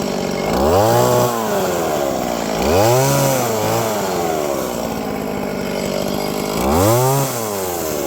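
Chainsaw cutting into a wood carving, its engine revving up and dropping back three times.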